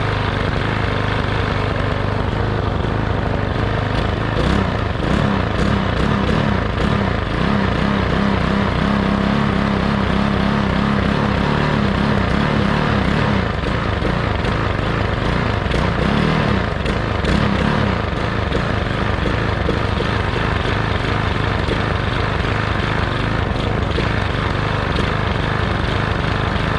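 Walk-behind lawn mower's small single-cylinder engine running steadily on a bent crankshaft, its note wavering in pitch through the middle stretch.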